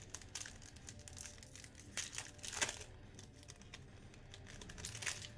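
Trading-card pack wrappers crinkling and tearing as sealed packs of 2020 Elite Extra Edition baseball cards are handled and ripped open by hand, in irregular crackles, loudest a little past two seconds in and again near the end.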